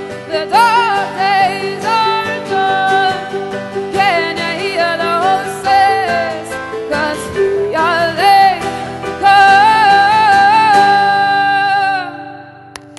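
Live acoustic band music: a female lead singer sings with heavy vibrato over plucked harp and acoustic guitar, holding one long note near the end. Just before the end the music drops away abruptly to a much quieter level.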